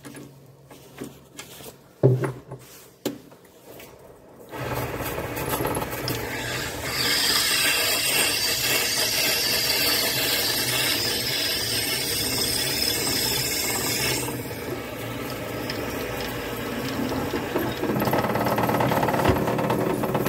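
A few knocks as the drill bit is set up, then the lathe motor starts about four and a half seconds in and runs steadily. A half-inch twist drill bit is fed into the end of the spinning plastic blank, a dense high cutting noise for about seven seconds, with another drilling pass near the end.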